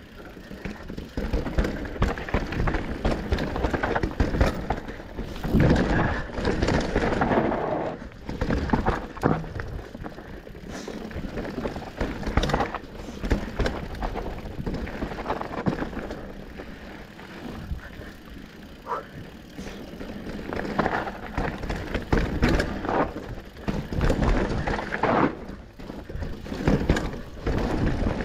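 Mountain bike being ridden down a dirt trail: tyres rolling over the ground, with frequent knocks and rattles of the bike over bumps, and loudness rising and falling.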